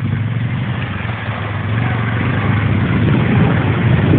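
ATV engine running steadily as the quad ploughs into deep water, its hum growing louder from about a second and a half in, with water churning and splashing around the wheels.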